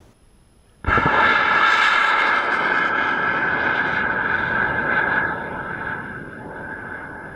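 Liquid-fuel rocket engine burning liquid oxygen and ethanol, igniting suddenly about a second in with a loud, steady roar that carries a hiss and a band of tones. The roar holds for about four seconds, then fades gradually.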